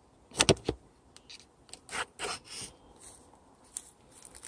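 Wooden window cover of a Flow Hive being fitted back over the viewing window by hand. A quick cluster of clicks and knocks comes about half a second in, then a few scrapes and small taps of wood against the hive body.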